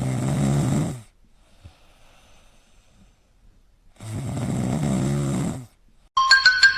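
Snoring: two long, rough snores about four seconds apart, with quiet breathing between.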